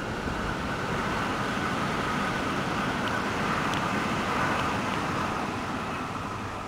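A vehicle running past, a steady hum with a faint level whine, swelling to its loudest about four seconds in and then fading.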